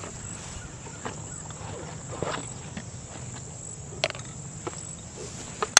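A steady high-pitched insect buzz, with a few scattered footsteps or rustles in dry grass.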